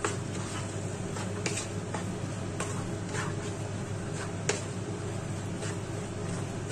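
Wooden spatula stirring macaroni in a nonstick kadai, giving a few scattered sharp clicks and scrapes against the pan over a steady background hum.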